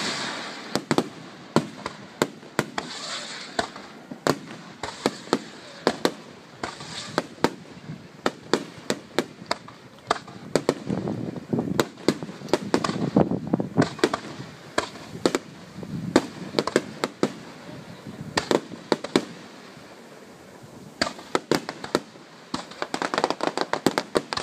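Aerial fireworks bursting: many sharp bangs and rapid strings of crackling reports, some in quick volleys, over a continuous rumble of echoing explosions.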